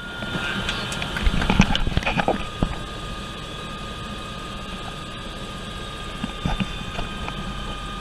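Eurocopter EC120 Colibri's turbine engine and main rotor running steadily, heard from inside the cabin: a high steady whine over a low hum. A few knocks and clatter come in the first three seconds.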